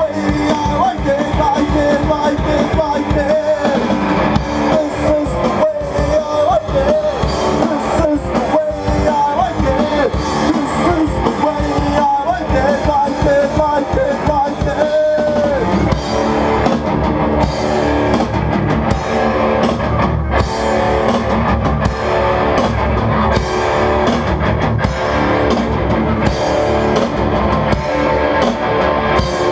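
Rock band playing live: drum kit, distorted electric guitars and bass. A wavering lead line rides over the band for about the first half, then drops away, leaving the drums and guitars.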